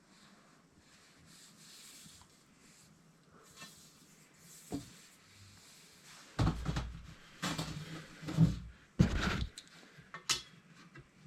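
Hands working a tape measure and pipe: faint at first, then from about six seconds in a run of rubbing and scraping handling sounds with a couple of sharp clicks.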